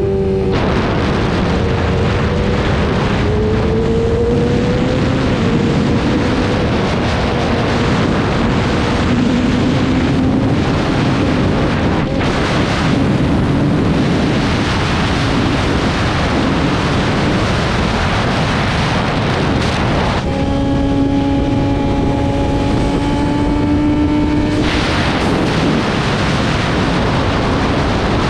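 Yamaha R6 sportbike's inline-four engine heard onboard under heavy wind noise on the microphone at riding speed, the engine note drifting up and down with throttle. About twenty seconds in, the engine holds a steady, clearer tone for a few seconds before the wind rush swamps it again.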